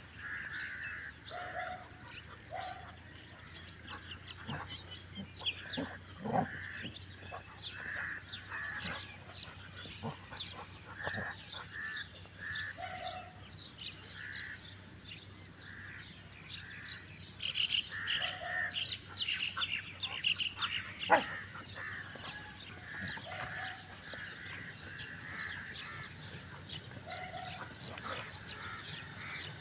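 Birds chirping and calling, with many short repeated notes. A busier stretch of chirping comes a little past halfway, and a single sharp knock soon after is the loudest moment.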